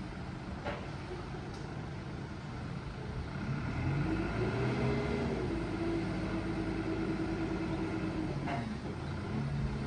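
An engine hum comes in about three seconds in and rises in pitch. It then settles to a steady, slightly lower note and fades out near the end, over a steady low rumble.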